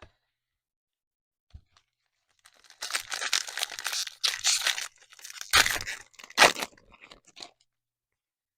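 A foil trading card pack being torn open and its wrapper crinkled, a few seconds of ripping and crackling with the sharpest tears near the end.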